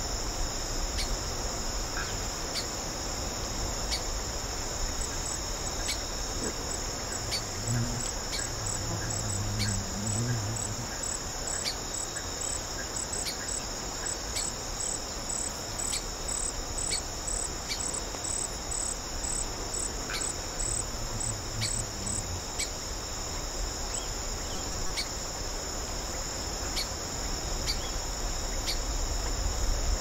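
Steady high-pitched insect chorus, a continuous shrill trilling, with a sharp tick about every second and a half.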